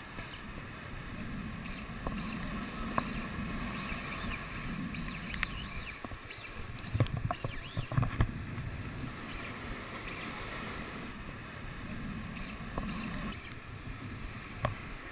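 Sea waves washing and splashing over shoreline rocks, a steady surging noise with low rumbles, broken by a few short sharp knocks and clicks, most of them about seven to eight seconds in.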